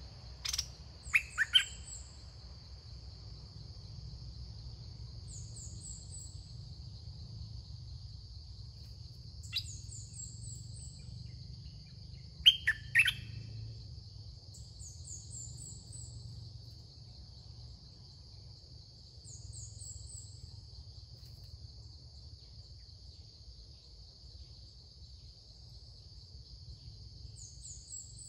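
Birds calling: a few loud, sharp chirps about a second in and again around 13 seconds, and a short run of quick high chirps repeated every four to five seconds. A steady high insect drone runs underneath.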